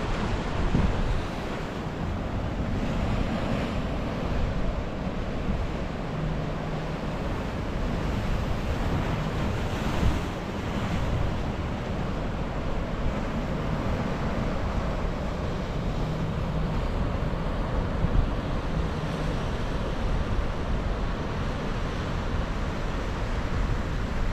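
Ocean surf washing over jetty rocks, a continuous rushing that swells now and then, with wind buffeting the microphone.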